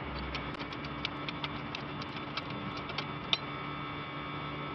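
A series of light, sharp metallic ticks, about three to four a second and somewhat uneven, from hand-tool work on a car's front wheel hub. The strongest tick comes a little past three seconds in, over a steady low hum.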